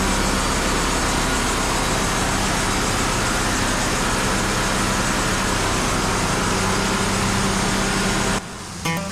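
WoodMizer LT35 portable band sawmill running steadily, its engine and band saw making an even mechanical drone, which cuts off suddenly near the end.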